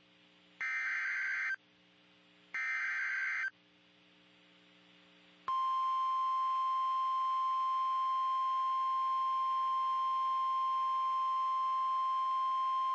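NOAA Weather Radio EAS alert: two one-second bursts of shrill digital SAME header data about a second apart, then, after a two-second gap, the steady single-pitch 1050 Hz warning alarm tone. The tone starts abruptly about five and a half seconds in and holds, signalling that a warning message follows.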